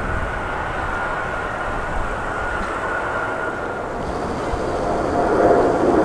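Jet engines of a taxiing Airbus A320, a steady noise with a high whine, giving way about four seconds in to the louder, deeper, building noise of a Boeing 777F's GE90 engines at takeoff thrust.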